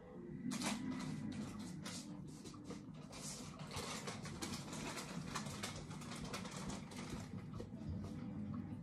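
Thick slime being pressed and kneaded by fingers: a dense run of small sticky clicks and pops over a low squelching.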